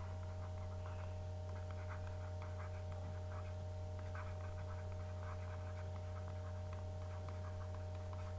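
Pen writing on paper: short scratchy strokes coming in quick clusters as a heading is handwritten, over a steady low electrical hum.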